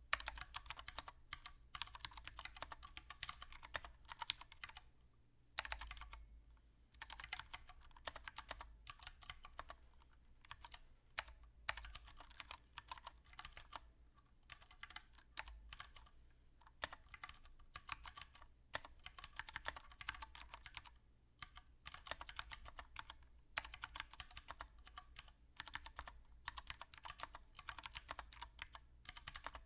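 Fast typing on a Mistel MD770BT mechanical keyboard with Cherry MX Brown tactile switches, standing on rubber feet: dense runs of key clicks broken by a few short pauses.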